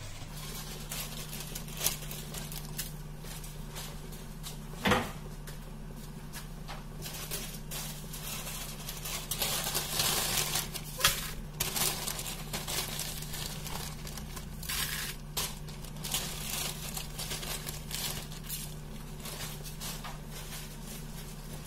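Dried red chillies crackling and rustling as they are dry-roasted on a flat iron tawa, over a steady low hum. There is a sharp knock about five seconds in. Around ten seconds in a longer, denser rustle comes as a large handful of dried chillies, among them Kashmiri chillies, goes into the pan.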